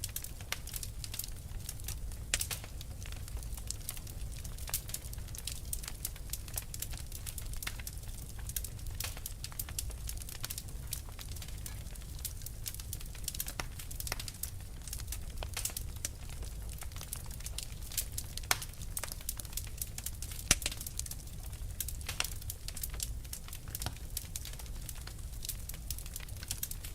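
Wood fire in a fireplace crackling, with irregular sharp pops over a low, steady rumble of the flames; a few louder snaps stand out.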